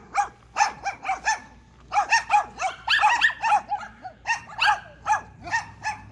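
Several dogs barking continuously, short overlapping barks coming several times a second, with a brief lull about a second and a half in. This is sustained nuisance barking, running well over two minutes.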